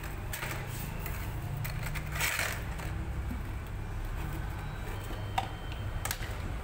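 Plastic dishes and a plastic lid handled on a concrete floor: a few light clicks and taps, with a brief scrape a little over two seconds in.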